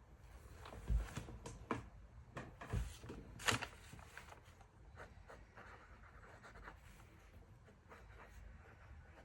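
Pen writing on paper, with a few light knocks from handling in the first few seconds, then quieter scratching.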